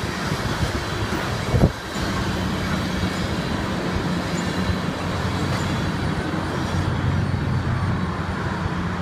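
Steady low mechanical hum with background traffic noise, and one short knock about two seconds in.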